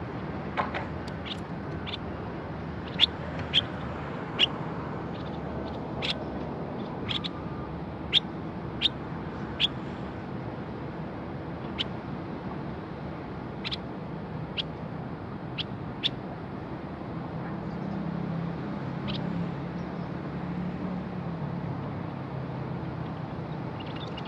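A caged common bulbul gives short, sharp chirp notes at irregular intervals, most of them in the first ten seconds, trailing off after about sixteen seconds. A low steady rumble runs underneath and swells for a few seconds in the second half.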